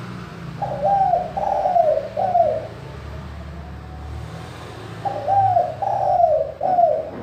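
Spotted dove (tekukur) singing its perching coo song: two phrases of three clear coos each, every note rising then dropping in a hook, with a pause of about two seconds between the phrases.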